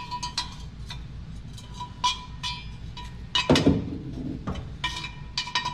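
Metal hand tools clinking and clattering as they are rummaged through: a run of sharp, ringing clinks with a heavier clank about three and a half seconds in.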